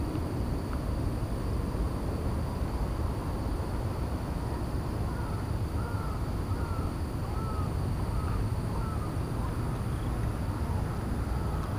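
Steady low outdoor rumble. Midway a bird gives a run of about eight short chirping calls.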